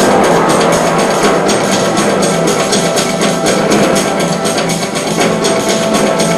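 Recorded music with a fast, steady percussive beat over sustained low tones.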